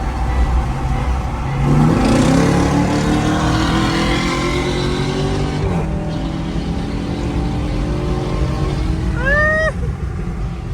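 Jeep Grand Cherokee Trackhawk's supercharged 6.2-litre V8 accelerating hard in sport mode: the engine note climbs steeply for several seconds, breaks at an upshift about halfway through, then pulls on steadily.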